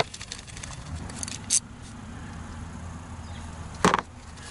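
A few light metallic clicks of a hand tool being worked on the ignition coil's hold-down bolt, with one sharper knock near the end, over a faint steady rumble.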